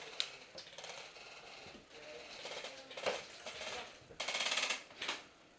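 Airsoft guns firing: a few sharp single shots and, near the end, a rapid half-second full-auto burst that is the loudest sound.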